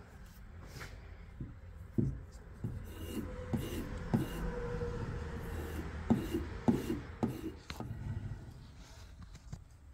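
A flat hand hone scraping in strokes along the steel edge of a HYTEST axe bit, honing the freshly filed bevel, with several sharp knocks in between. It starts about two seconds in and dies away near the end.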